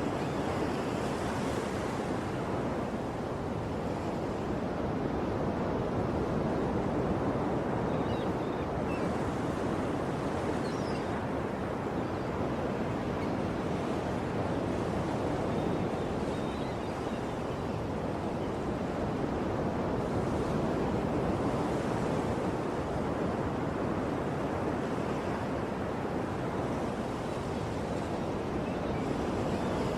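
Ocean surf washing steadily onto a shore, swelling and easing gently, with a few faint high bird chirps near the middle.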